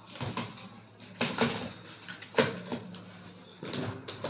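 Hard-shell VIP trolley suitcase being handled and laid down on the floor: a scattered series of clicks and knocks from its handle and plastic shell, the sharpest about two and a half seconds in.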